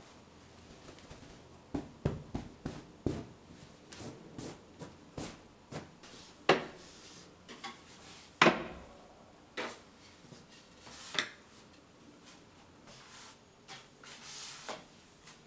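Sweeping a tile floor with a broom and a plastic long-handled dustpan: a string of clacks and taps as the dustpan and broom knock on the tiles, a couple of much sharper knocks in the middle, and a brief bristle swish near the end.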